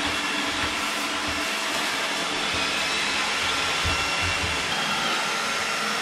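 iRobot Roomba 980 robot vacuum running: a steady whir from its suction motor and brushes.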